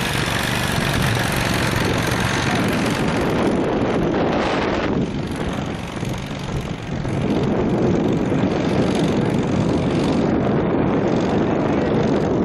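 Wind buffeting the camera microphone: a steady rumbling rush that eases for a couple of seconds in the middle, then comes back.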